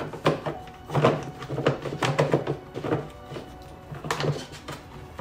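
Hard plastic air-box parts of a motorcycle knocking and clattering as they are worked into place by hand: a run of irregular knocks and scrapes.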